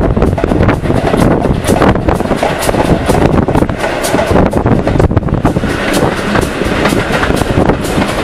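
Steam train running along, heard from right beside the locomotive: a loud, steady rumble with sharp beats repeating about twice a second.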